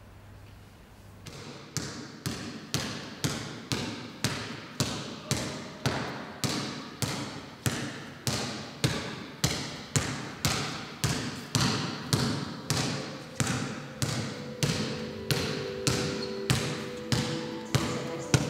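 A basketball being dribbled on a hard gym floor, bouncing steadily about twice a second, each bounce ringing briefly in the hall.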